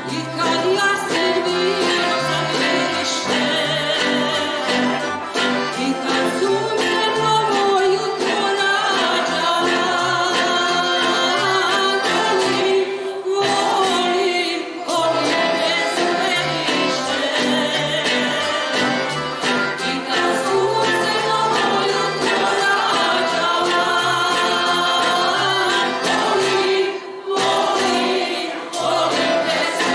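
A woman sings a slow song solo, backed by a mixed choir and by acoustic guitar and other plucked strings keeping a steady beat. The music drops away briefly twice, between phrases.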